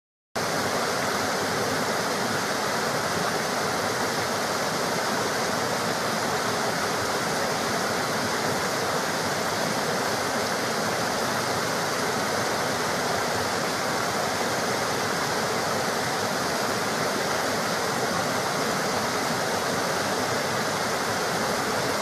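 Rushing water, a steady, even roar like a waterfall or fast stream, cutting in sharply just after the start and cutting off at the end.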